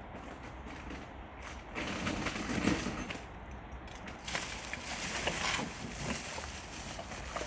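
Rubbish in a skip being shifted and rummaged through: bursts of rustling and scraping, one about two seconds in and another from about four to five and a half seconds in.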